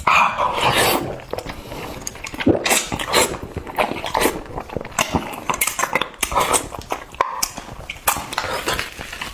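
Close-miked eating: wet chewing and lip smacking, a dense run of short smacks and clicks one after another.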